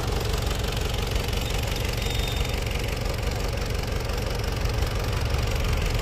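Heavy diesel engine of earthmoving machinery running steadily, a low, even rumble.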